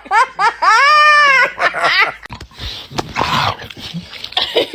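A dog vocalising in a string of quick, short yips that rise and fall in pitch, then one long drawn-out howl about a second in, followed by rougher, breathier noises.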